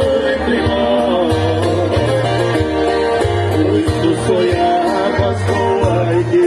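Live música sertaneja: viola caipira and guitars playing a melody over repeated bass notes.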